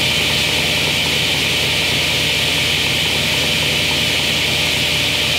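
Belt-driven motor and blade of a Craftsman 10-inch cast iron table saw running steadily with no cut being made.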